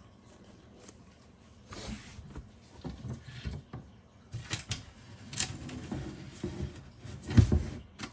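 A thin plywood panel being slid and fitted onto the floor of a sink base cabinet: irregular wooden knocks, clicks and short scrapes starting after a quiet second or two, with the loudest knock near the end.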